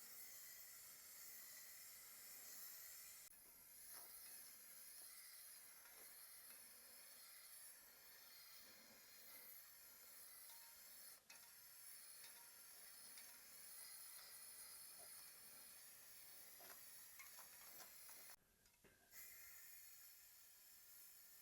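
Near silence: faint steady hiss of room tone, with a few soft ticks.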